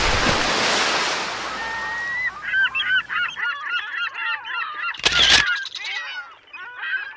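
A rushing whoosh that fades out over about three seconds, overlapped and then followed by a flock of birds giving many short, overlapping calls. The calls are cut by a short, loud burst of noise about five seconds in.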